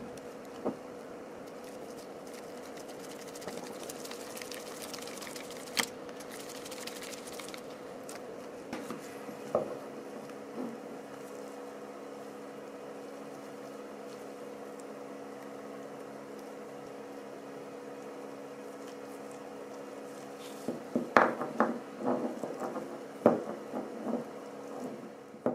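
Small clicks and taps of metal parts being handled and fitted together by hand, a few single clicks and then a quick run of clicking near the end, over a steady hum.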